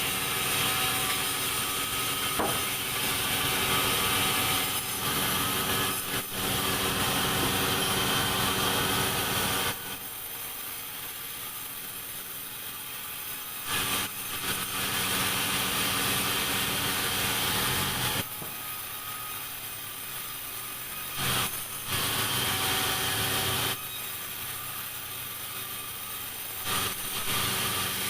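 Sawmill saw cutting timber into beams. Loud stretches of cutting alternate with quieter stretches where the machine runs on without cutting.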